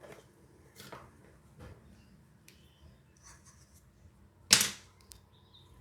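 Objects and packaging being handled on a desk: a few light taps and rustles, then one sharp knock about four and a half seconds in, the loudest sound.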